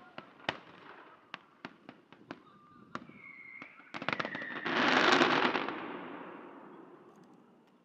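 Fireworks going off: scattered sharp bangs, then a quick run of cracks about four seconds in, followed by a loud dense burst of crackling that slowly fades out.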